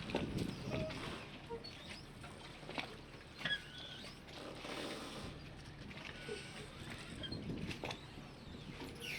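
Harbour ambience of scattered squeaks, creaks and clicks over a low rumble, with no steady rhythm.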